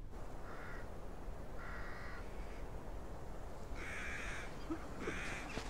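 Crow cawing four times, harsh calls with gaps between them, the last two louder, over a low steady background noise.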